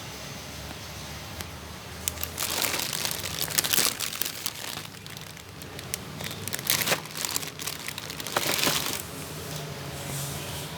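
Crinkling and rustling handling noise in irregular bursts for several seconds, starting about two seconds in, the sound of something like plastic or packaging being handled.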